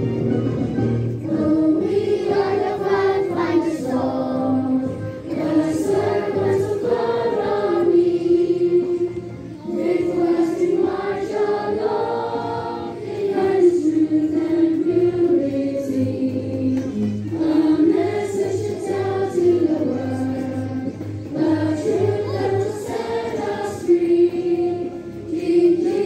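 A group of people singing a slow song together, voices held on long notes that step up and down in pitch.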